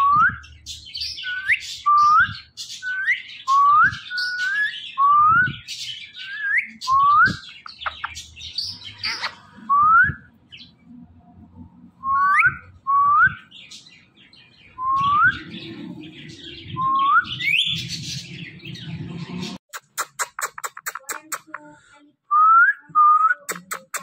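Indian ringneck parakeet giving short rising whistles, repeated every half second to a second with a few gaps, with fainter chirps between them. Near the end there is a quick, even run of clicks.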